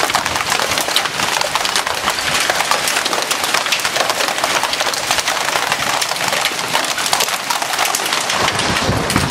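Heavy hail pelting down: a dense, rapid, unbroken clatter of hailstones striking hard surfaces.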